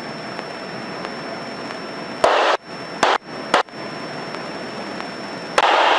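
Steady hiss of a small plane's cabin noise heard through the headset intercom, broken by short bursts of radio static that start and stop abruptly, about two, three and three and a half seconds in, and a longer burst near the end.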